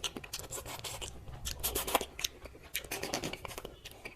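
Close-miked crunchy eating: a rapid run of sharp crunches and crackles as food is bitten and chewed.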